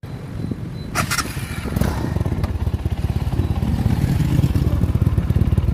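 Motorcycle engine idling steadily, heard near its chrome exhaust silencer, a fast even run of exhaust pulses. A few sharp clicks sound about a second in.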